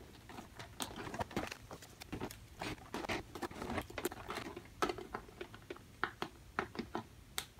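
Light, irregular clicks, taps and rustles of hands handling a clear plastic toy stadium while putting stickers on it.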